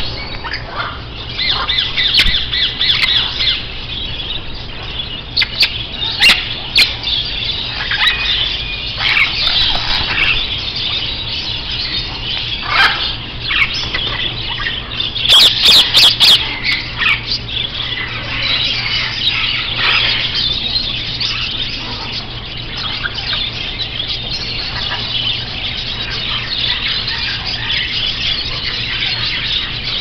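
A shop full of caged parrots and parakeets, African greys and ring-necked parakeets among them, squawking and chattering together in a dense, continuous din. A few sharper, louder squawks stand out, the loudest cluster about halfway through.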